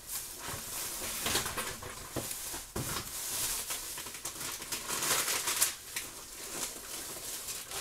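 Plastic and paper packaging rustling and crinkling as groceries are handled and pulled out of a delivery box, with a few soft knocks.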